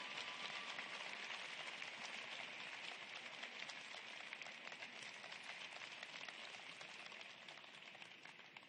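Scattered audience applause in an arena after a figure skating program, a dense patter of clapping that slowly dies away near the end.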